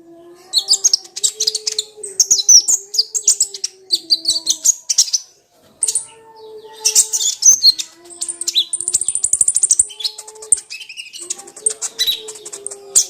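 Kolibri ninja sunbird singing: fast, high chirps and twittering trills in bursts, with a rapid-fire trill about nine seconds in. A fainter, wavering low tone runs underneath.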